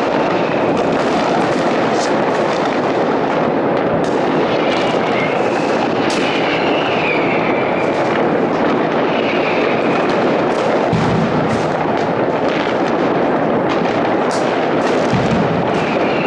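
Citywide New Year's Eve fireworks: a continuous din of many distant bangs and crackling firecrackers from all over the city, with sharper cracks standing out. A few whistles rise and fall through it, and there are two deeper booms in the second half.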